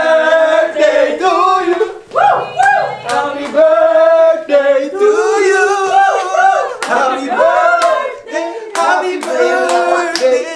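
A group of people singing a lively song together, with hands clapping in rhythm near the end.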